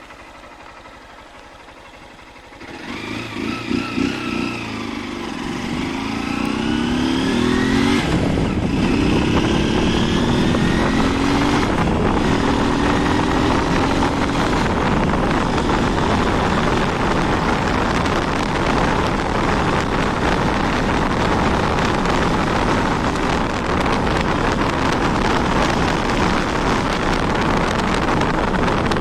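Honda 160 motorcycle engine idling, then pulling away: the engine note rises as it revs up through the gears, with a shift about eight seconds in, before settling into a steady cruise.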